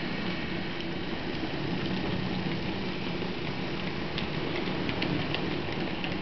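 HO scale model freight train rolling past: a steady hum with an even rolling hiss. Scattered light clicks come in from about four seconds on as the freight cars pass.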